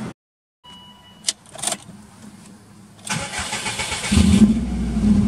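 Subaru Impreza WRX's EJ20 turbocharged flat-four being started from inside the cabin: a short chime and key clicks, the starter cranking for about a second, then the engine catches with a brief rev flare and settles into a steady fast idle through its aftermarket muffler.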